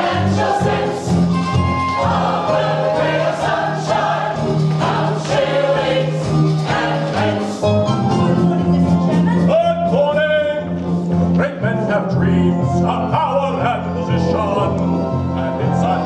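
A mixed chorus of men and women sings a musical-theatre number over instrumental accompaniment.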